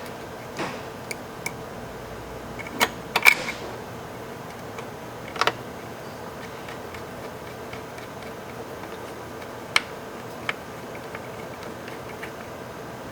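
Scattered sharp clicks and knocks of a rugged laptop and small tools being handled during reassembly, the loudest a quick double knock about three seconds in. A steady low hum sits underneath.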